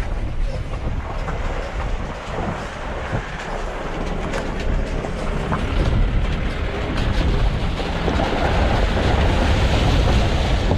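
Mahindra Bolero Camper driving slowly over a rocky riverbed: tyres crunching on stones, with scattered clatters as the body and stones knock. From about eight seconds in, water splashes against the front wheel as it fords a shallow stream.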